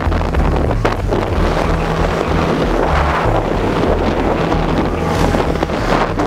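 Steady wind buffeting over the microphone at downhill speed, with the rumble of longboard wheels rolling on asphalt.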